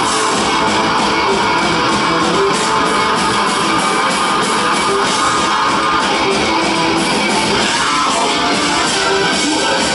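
Live metal band playing at full volume: distorted electric guitar, bass, drums and keyboards in a dense, steady wall of sound.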